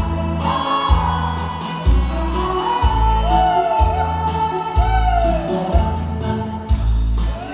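Instrumental backing track playing through stage speakers: a steady bass beat about once a second under a melody that glides up and down.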